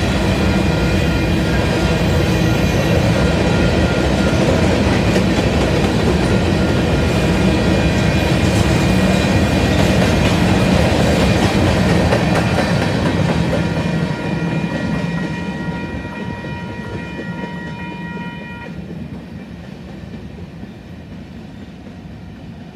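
Covered hopper cars of a freight grain train rolling past with steady wheel rumble and clickety-clack on the rails; the last cars go by about 14 seconds in and the sound fades as the train moves away. A steady ringing tone sounds over it and stops suddenly about 19 seconds in.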